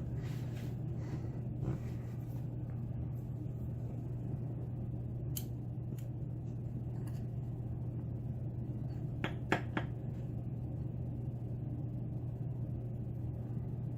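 A few small, sharp metal clicks and taps from handling a pin tumbler lock and its tools while gutting it, over a steady low hum; two clicks come close together about two thirds of the way in.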